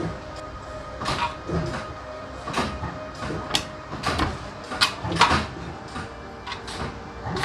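A small press notching aluminium ladder profiles, with irregular sharp metallic clanks and knocks, roughly one or two a second and sometimes in quick pairs, over a faint steady machine hum.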